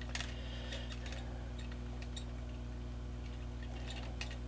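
A few light clicks and ticks of small laser-cut model parts being handled and fitted together against a work board, over a steady low electrical hum.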